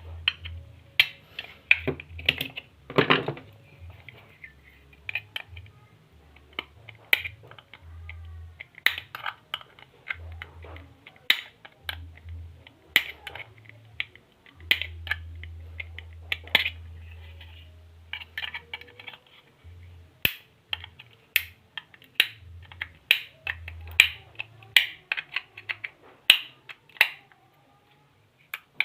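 Irregular sharp clicks and taps of hand tools and small metal parts being handled while working on a 12-volt snail horn, at times several a second. A faint low hum comes and goes, longest about halfway through.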